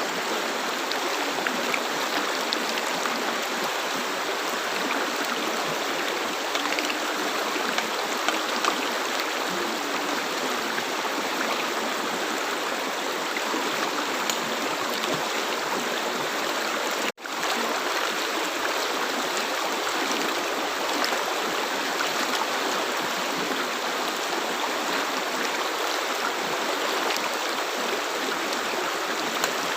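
River water flowing steadily: an even rush with small splashes throughout. A little past halfway it cuts out for a split second and comes straight back.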